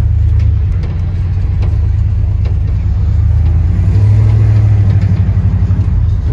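The LS V8 engine of a swapped 1977 Chevy Suburban running as the truck drives, a steady low hum that swells about four seconds in and then pulses quickly before easing near the end.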